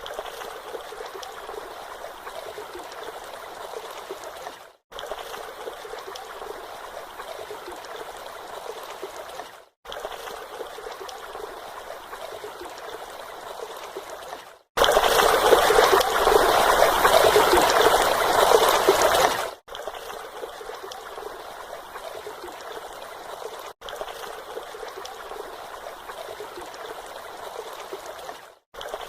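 Small stream with a mini waterfall, water flowing and trickling steadily, heard in several short takes separated by brief silent breaks. One take in the middle, lasting about five seconds, is much louder and fuller.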